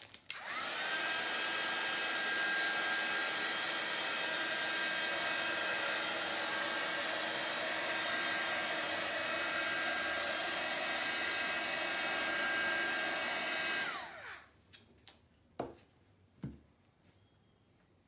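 Small hair dryer running steadily for about fourteen seconds, its motor whine rising as it starts and falling away as it switches off, blowing across wet acrylic paint. A few light clicks follow near the end.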